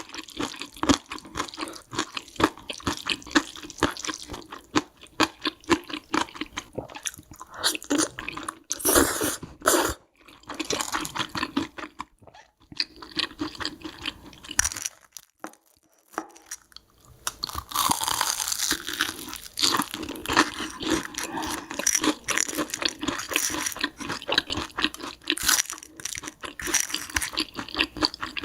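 Close-miked chewing of carbo noodles: dense, rapid wet mouth clicks and chewing, briefly pausing twice midway.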